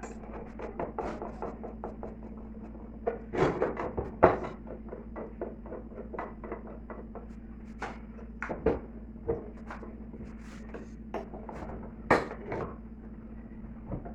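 Irregular knocks, clicks and scrapes of hand tools and parts being worked loose on a washing machine being taken apart, with a cluster of sharper knocks a few seconds in and single hard knocks later, over a steady low hum.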